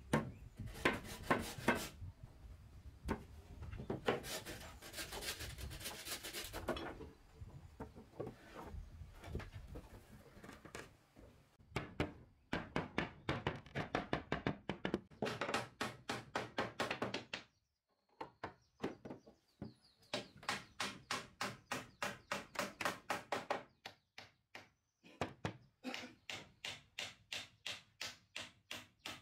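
Rapid, even strikes on wood, about four a second, in three runs with short pauses between them, after a stretch of looser, irregular knocking.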